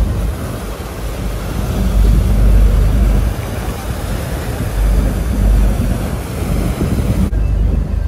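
Wind buffeting the microphone on a moving motorboat, over a low engine rumble and the wash of the wake, swelling and easing every second or two. Near the end the wind noise drops away abruptly, leaving a duller boat sound.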